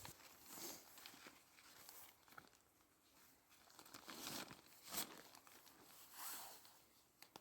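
Faint rustling and crinkling of nylon tent fabric being handled while the tent is pitched, in soft swells with a sharp click about five seconds in and another near the end.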